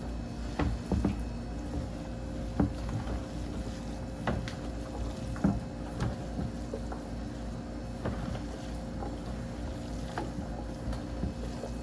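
Noodles and vegetables being tossed and mixed in a bowl: irregular light knocks and clicks, a handful of them sharper, over a steady background hum.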